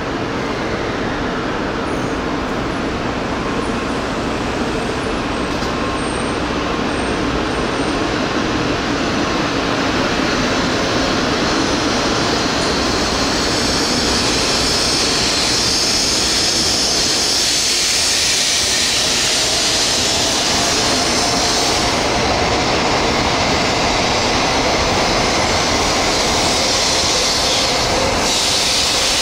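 Tokaido Shinkansen train running through the station at speed: a steady rushing roar of wheels and air that grows a little louder about ten seconds in.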